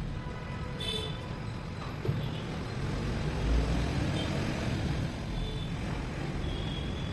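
Royal Enfield Diesel Bullet's freshly rebuilt single-cylinder diesel engine idling steadily during its run-in, with a few light clicks.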